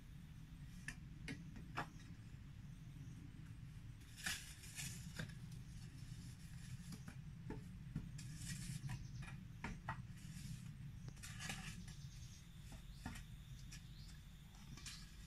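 Faint scrapes and ticks of a hand tool digging into soil, with loose dirt pattering down in a few short rushes, over a low steady hum.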